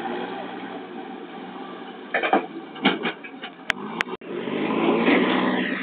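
Handling noise from a phone camera being lowered and moved, with knocks and rustling past the middle, two sharp clicks and a brief dropout, over steady background noise.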